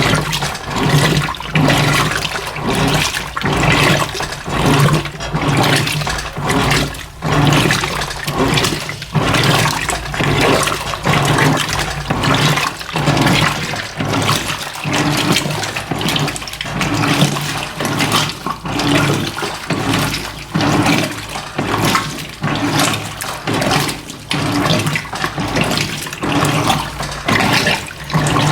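Electrolux LF90 washing machine agitating rugs in a low water level: water sloshing in regular surges about once a second, with a low motor hum pulsing on each stroke.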